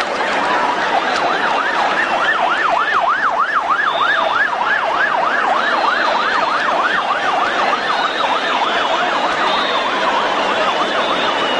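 Emergency vehicle siren in a fast yelp, about four rising-and-falling sweeps a second, slowing into a gentler wail after about eight seconds.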